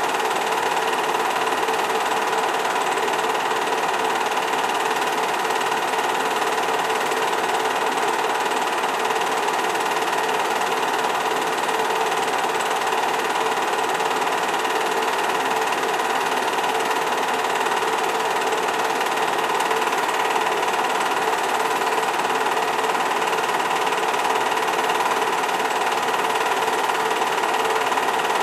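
8 mm film projector running: a steady, even mechanical whir and clatter with a constant hum.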